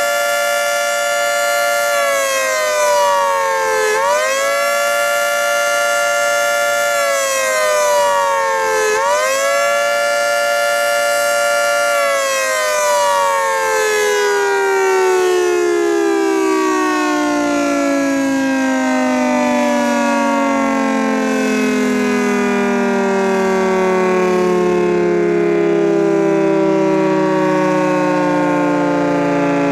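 Federal Signal 3T22 outdoor warning siren. For about the first twelve seconds it sounds a fast wail, a chord that rises, holds and falls about every four to five seconds. It then powers down and winds down slowly, its pitch sinking steadily, the long coast-down of a siren in good running order.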